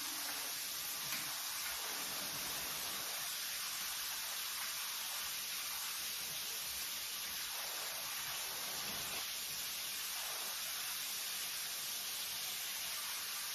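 Minced meat frying in a pan on a gas hob, a steady sizzle without pause.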